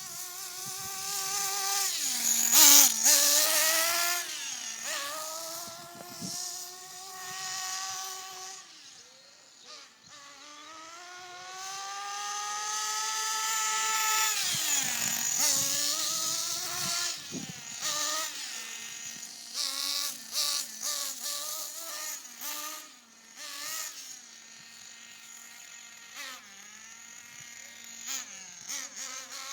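Nitro RC car's small glow-fuel engine running as the car is driven, its high buzzing note climbing and falling with the throttle and distance over several-second sweeps. In the last third it comes in many short, choppy blips as the throttle is pulsed on and off.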